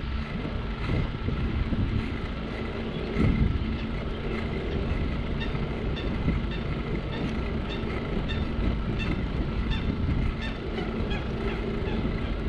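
Wind buffeting a GoPro 7's microphone and tyres rolling on asphalt while cycling steadily along a cycle path. From about five seconds in, a faint, regular high ticking comes a couple of times a second.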